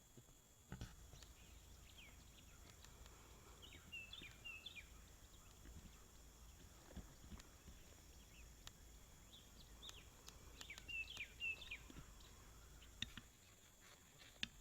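Faint bird chirping in two short runs of quick notes, about four seconds in and again around eleven seconds, over a low rumble and a few scattered faint clicks.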